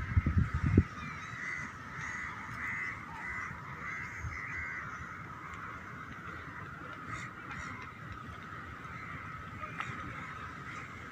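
A steady, high-pitched chorus of animal calls that never lets up, with a few low thumps in the first second.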